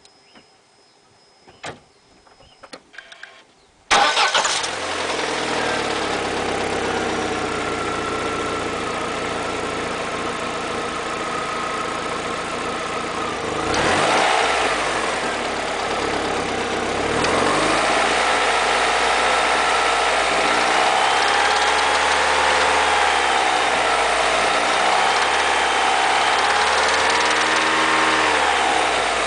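Car engine starting up about four seconds in after a few faint clicks, then idling, with a quick rev near the middle and several gentle rises and falls in engine speed later. This is the engine with a knocking noise that appeared after a service, which a mechanic judged not dangerous.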